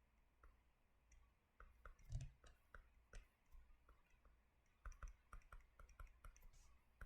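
Faint, irregular clicks and taps made while drawing, sparse at first and then several a second, with one slightly louder tap with a low thump about two seconds in.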